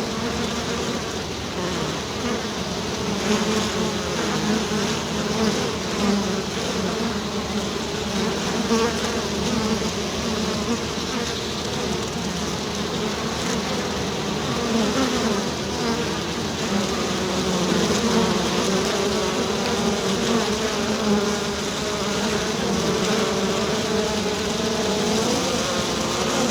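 Swarm of honey bees buzzing: many wingbeat hums overlapping into a dense, steady drone that wavers slightly in pitch.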